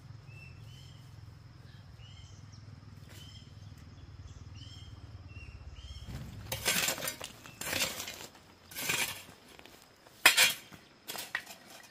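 A low steady hum with faint short chirps repeating, then from about halfway a run of loud clattering and clinking of hard objects being handled, in five or six bursts.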